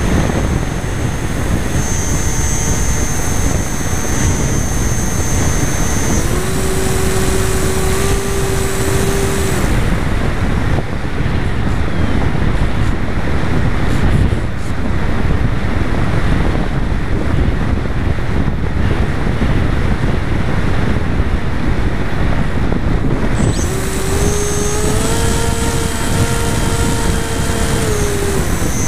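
Wind rushing over the onboard camera of a radio-controlled plane in flight. The motor's steady whine is heard in two stretches, one about a quarter of the way in and one near the end, and fades out between them.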